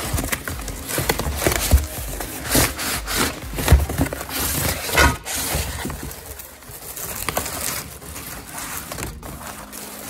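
Corrugated cardboard packing and bubble wrap rustling and crinkling as they are pulled back by hand, with a few dull bumps. It is busiest in the first half and quieter after about six seconds.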